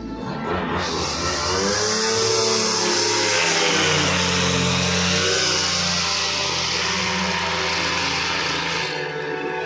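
Zomax ZNG 4303 brush cutter's two-stroke engine revving and running at high speed with a loud hiss. It picks up about a second in, its pitch rises and falls in the middle, and it drops back near the end.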